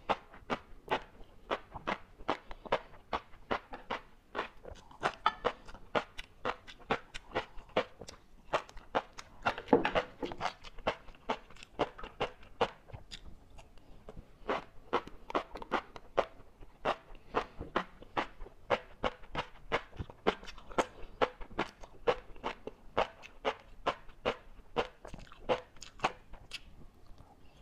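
Close-up chewing of large-grain flying fish roe (tobiko), a quick run of crisp little pops and clicks at about two or three a second as the eggs burst between the teeth, with one louder crunch about ten seconds in.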